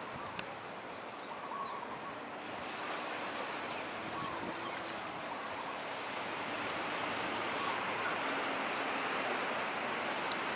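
Steady rush of ocean surf breaking, a continuous wash of noise that grows somewhat louder in the second half.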